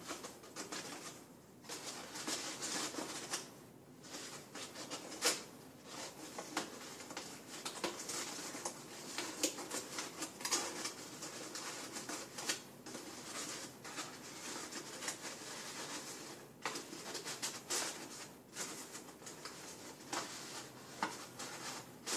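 Paper lamp pieces rustling and crinkling as hands bend and slot interlocking paper pieces together, with frequent irregular crackles and taps.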